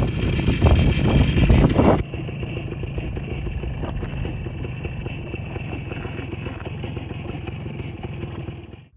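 Small motorcycle engine running while it rides across lake ice. The first two seconds are louder and rougher, then the sound changes abruptly to a steadier engine note.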